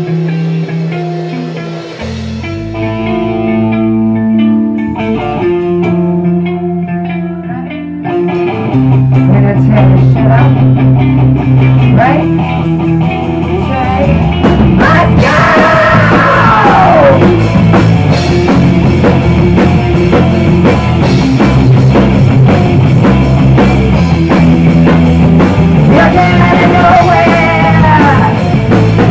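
Live rock band playing: a quieter opening of held guitar and bass notes, then the full band with drums comes in loud about eight seconds in. Falling pitch slides can be heard around halfway through and again near the end.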